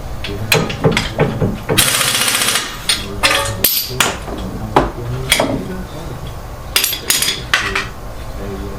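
A hammer striking repeatedly at an irregular pace, about a dozen blows in all, during strut replacement on a car's suspension. A brief hiss is heard about two seconds in.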